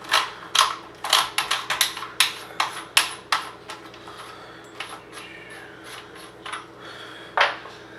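Quick series of sharp metallic clicks as the end cap on a Stoeger M3000 shotgun's magazine tube is unscrewed, crowded together for the first three seconds or so and then a few single clicks spaced out.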